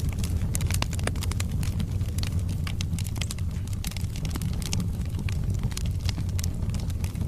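Wood fire burning in a fireplace: a steady low rumble of the flames with many quick, irregular crackles and pops from the burning logs.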